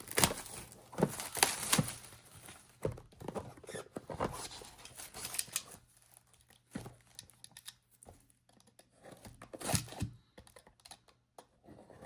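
A trading card box being unwrapped and opened by hand: irregular tearing, crinkling and clicking of packaging, thinning out to a few scattered clicks in the second half.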